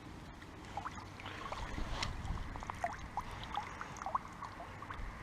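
Water splashing and dripping: many small, quick plops and trickles, over a low steady rumble.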